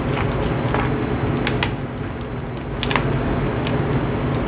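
Steady low mechanical hum of pizzeria kitchen equipment running, with a few sharp clicks and knocks about one and a half and three seconds in.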